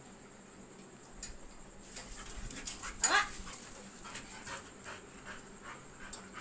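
Two Labrador retrievers play-fighting: one lets out a single high cry that slides down in pitch about three seconds in, amid scuffling and clicks as they wrestle.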